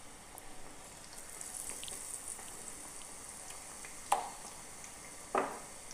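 Batter-coated potato slices deep-frying in hot oil, a steady soft sizzle with a high hiss. Two short sharp sounds stand out, about four seconds in and again near the end.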